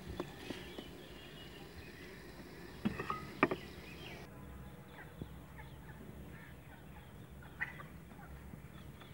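Faint calls of domestic fowl, with a few light knocks near the start and around three seconds in.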